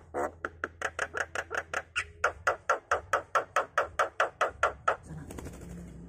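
Javan myna calling in a fast, even run of short repeated notes, about six a second, that stops about five seconds in.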